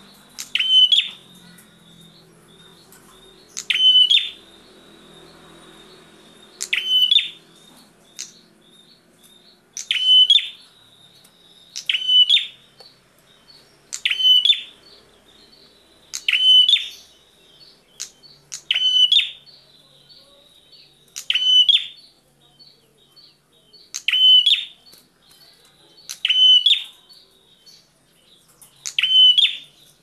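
Prinia (prenjak) calling loudly: about twelve short, rapid trilled bursts, one every two seconds or so, with faint chirps between them.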